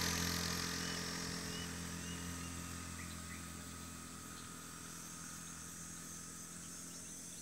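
A motor vehicle's engine noise fading away over the first few seconds, over a steady low engine hum. Faint bird chirps and a thin insect hiss can be heard behind it.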